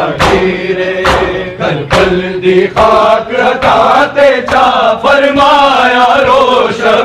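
Crowd of men chanting a Punjabi nauha together, with sharp slaps of hands beating on bare chests (matam) in time, roughly once a second.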